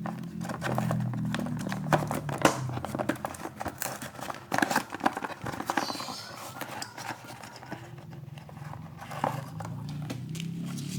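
Plastic packaging crinkling and rustling, with irregular clicks and taps, as a wiring harness is unpacked and handled.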